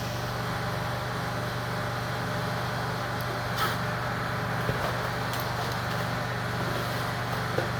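A small electric motor running steadily, giving a constant low hum with an even hiss over it and a few light clicks.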